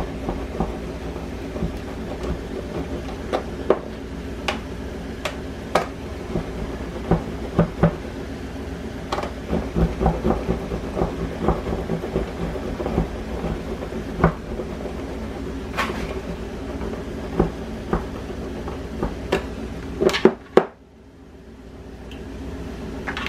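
Cheese being grated by hand on a stainless-steel box grater: irregular scraping strokes with many small clicks and knocks of the metal grater, over a steady hum. Everything cuts out suddenly about twenty seconds in.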